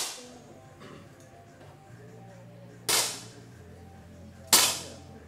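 Air pistol shots on an indoor range: two sharp pops about a second and a half apart, each with a short ringing tail, with the tail of another shot just at the start.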